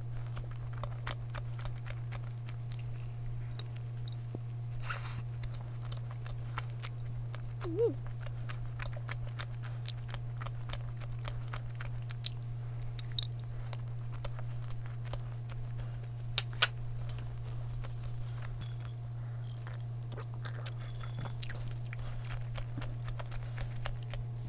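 A person chewing and eating a donut close to the microphone: many small wet mouth clicks over a steady low hum.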